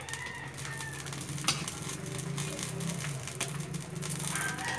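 Metal spatula scraping and clicking against a steel wok while stirring a simmering tomato sauce with pork, with one sharp clack about a second and a half in, over a steady low hum. Near the end a rooster starts crowing.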